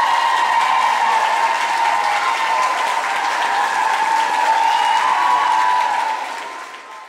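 Audience applauding and cheering, with high, sustained shouts over the clapping, at the end of a dance routine. It fades out near the end.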